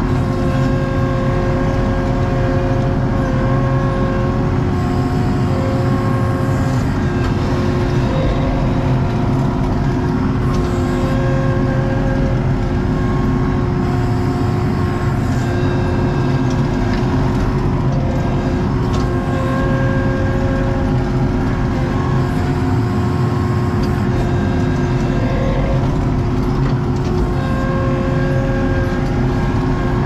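ASV RT-40 compact track loader's diesel engine running steadily under load, heard from inside the cab, with whining tones that come and go as the machine works.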